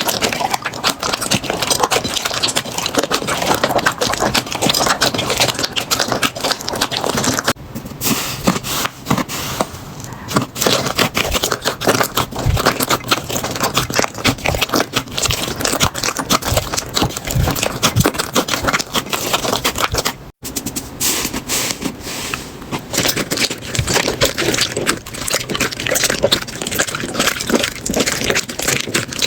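Slime being squeezed, pressed and stretched by hand, making a dense run of small crackles and pops. The sound breaks off and starts again with a slightly different texture about 8 and 20 seconds in.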